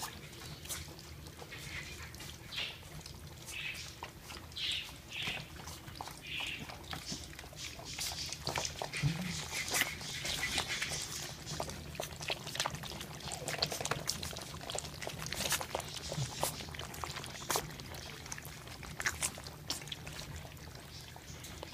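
A litter of one-month-old American Hairless Terrier puppies lapping and slurping food from a shared platter: a steady patter of many small wet clicks and smacks.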